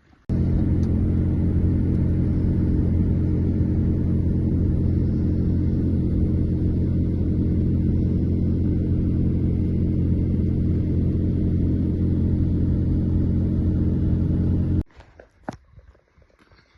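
A vehicle engine running at a steady speed: a loud, even, low drone that starts and stops abruptly.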